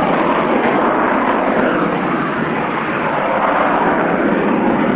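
Aircraft engines, a loud steady rushing noise that dips slightly about halfway through.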